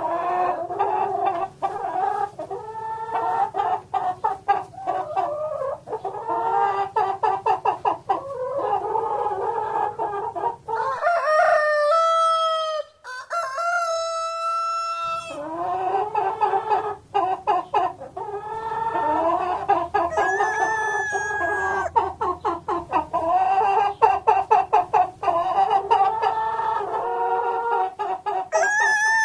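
Hens clucking in rapid, repeated runs. From about 11 to 15 seconds in comes a long, drawn-out, higher call.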